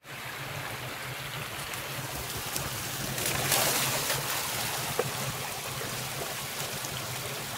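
Shallow creek water running steadily over rocks and a small cascade, with splashing from a dog's paws as it wades in, loudest about three to four seconds in. A single sharp click comes about five seconds in.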